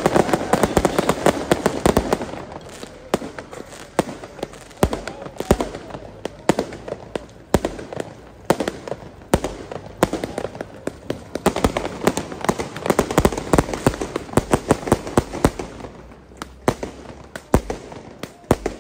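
Fireworks going off in rapid, irregular succession: a dense run of sharp cracks and bangs, heaviest at first, easing off and then building again midway.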